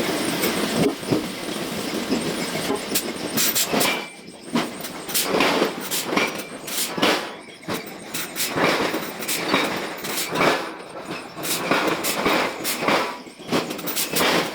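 Hammer blows on hot iron during forging: repeated sharp metal-on-metal strikes at roughly one to two a second. A denser clatter fills the first few seconds.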